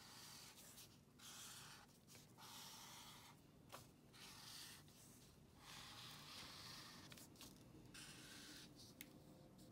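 Faint scratching of a felt-tip marker drawing lines on paper, in a series of strokes about a second long with short pauses between them.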